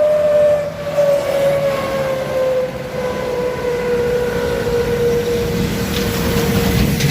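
A truck labouring up a steep hill in low gear, its engine and drivetrain giving a high whine that slowly falls in pitch as it loses speed, over a low rumble that grows near the end.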